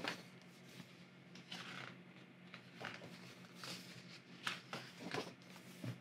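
Pages of a large hardcover art book being turned by hand: a series of soft paper swishes and rustles, faint, over a steady low hum.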